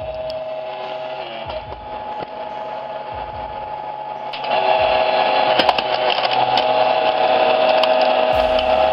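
Steady whine of a machine's electric motor running, becoming louder about halfway through.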